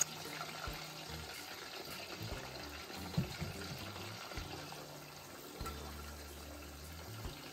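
Green plantain slices frying in hot oil in a stainless steel pot, a faint steady sizzling and bubbling, the first of two fries. A spoon knocks lightly against the pot once about three seconds in.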